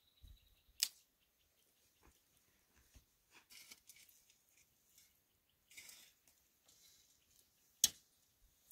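Faint scuffs and crunches of footsteps on dry, stony ground, with two sharp clicks: one about a second in and one near the end.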